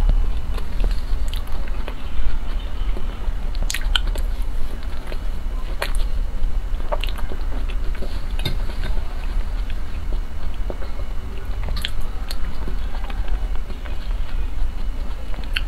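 Close-miked chewing and biting of a soft cream-filled cake, with scattered sharp wet mouth clicks and smacks, over a steady low hum.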